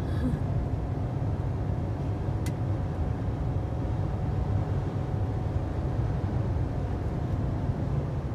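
Steady low rumble of a car's engine and tyres on the road, heard from inside the cabin while driving. A faint steady high tone runs through most of it, and a single brief tick comes about two and a half seconds in.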